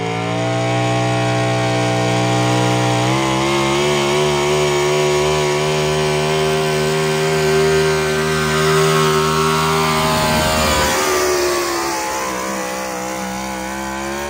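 Pulling vehicle's engine held at high, steady revs under full load during a pull. The pitch steps up about three seconds in, then sags near the end as the engine bogs down, and the sound drops away sharply at the very end.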